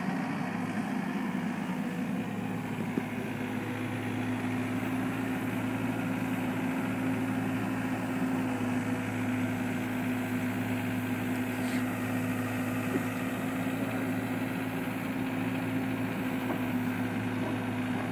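Caterpillar 305.5D mini excavator's diesel engine running at a steady speed, an even hum that hardly changes.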